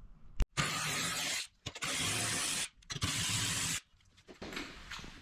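A power ratchet or impact tool runs in three bursts of about a second each, backing out the bolts that hold the ATV's rack down. A single click comes just before the first burst.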